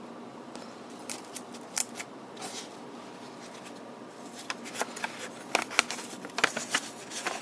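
Hands opening a boxed transistor radio kit and handling its packaged parts: scattered light clicks, taps and rustles. These grow thicker and louder in the second half.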